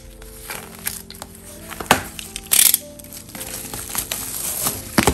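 Plastic shrink wrap crinkling and crackling as it is slit and peeled off a boxed album, with a loud tearing crackle about halfway through. Soft background music runs underneath.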